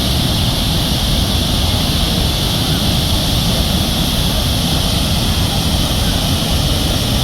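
Murchison Falls on the Nile: a loud, steady rush of falling water with a deep rumble underneath.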